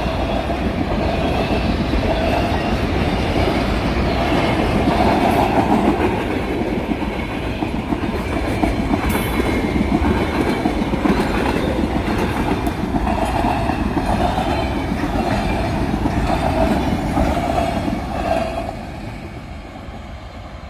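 Freight train wagons rolling past close by, their wheels rumbling and clacking over the rails, with a wheel squeal that comes and goes. The sound fades away near the end as the last wagons pass.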